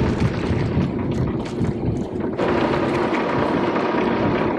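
Steady rush of wind and churning wake water at the stern of a sailboat under way, turning hissier about two and a half seconds in.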